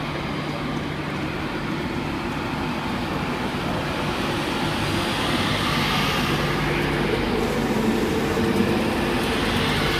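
A Class 91 electric locomotive pulling away with its train. A steady electric hum with held motor tones and running noise from the train grows gradually louder.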